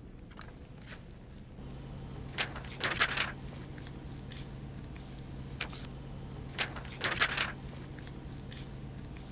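Several short rustling handling sounds as a vented chest seal is applied and pressed onto the chest, over a steady low hum that begins about a second and a half in.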